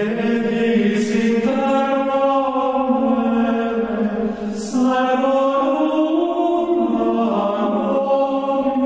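Sung religious chant: slow vocal notes, each held steady for a second or more, shifting pitch about a second and a half in and again near the five-second mark.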